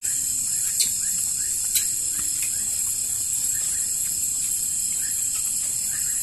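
Steady high-pitched chorus of night insects such as crickets, with fainter short chirps repeating a few times a second. Two sharp clicks stand out about a second and two seconds in.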